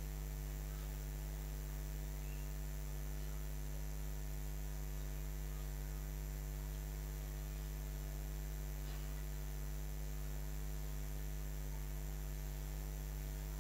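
Steady electrical mains hum from a microphone sound system, one unchanging low buzz with a ladder of higher overtones.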